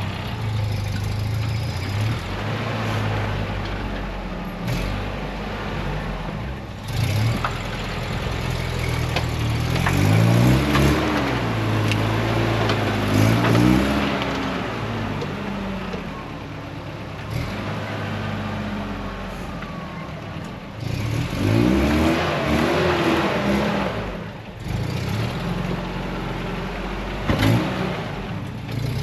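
Off-road 4x4's engine working under load on a slippery climb. It revs up and down in several surges: a long push about a third of the way in, and another one two-thirds in.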